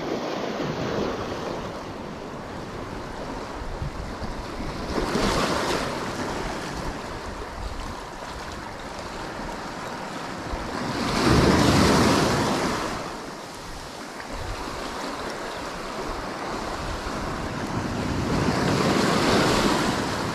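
Sea waves breaking and washing in on the shore, coming in three swells with the loudest about halfway through, with wind buffeting the microphone.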